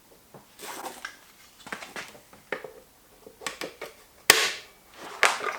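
Scattered metal clicks and clanks as battery leads are clipped onto battery terminals, with one sharp, loud click about four seconds in.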